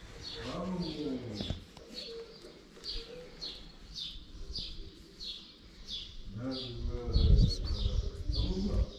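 A small bird chirping over and over, about two short high chirps a second. Lower pitched calls come in briefly about half a second in, and again louder for the last couple of seconds.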